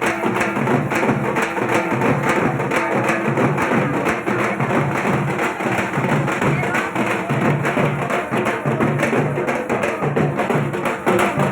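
Dhak, the Bengali barrel drum, beaten with sticks in a fast, unbroken rhythm.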